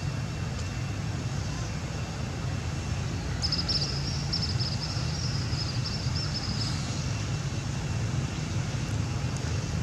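Steady low background rumble, with a high, rapidly pulsing buzz that starts about a third of the way in and lasts about three seconds.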